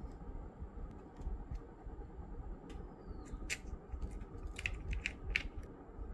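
Small sharp clicks from the plastic smart key fob of a Hyundai Verna/Accent as it is handled during a battery change: a few faint ticks, then a quick cluster of louder clicks in the second half.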